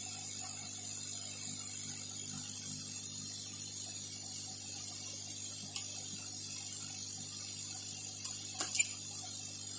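Steady electrical hum with a high-pitched whine from running workshop equipment, with a few faint ticks in the second half as multimeter probes touch the hard drive's circuit board.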